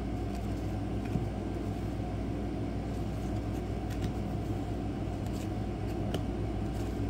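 A steady low hum, with a few faint ticks and slides of baseball cards being flipped through by hand.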